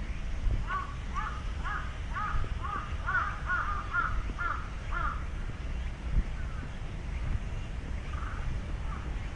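A crow cawing in a quick series of about ten harsh calls, about two a second, then twice more faintly near the end, over a steady low rumble.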